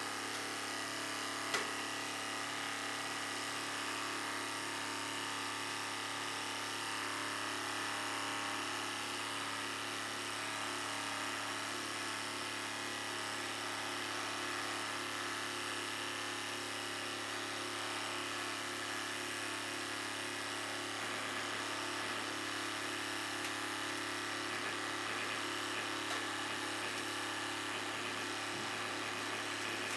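A 500-ton hydraulic press's pump running with a steady hum while the ram bears down on a sledgehammer's steel head and wooden handle. There is one sharp crack about a second and a half in.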